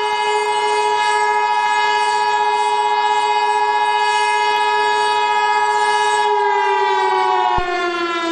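A civil defense siren holds a steady, high-pitched wail, then begins to wind down in pitch about six seconds in. Over it sits a steady alert tone just under 1 kHz, like the Emergency Alert System attention signal, which cuts off abruptly near the end.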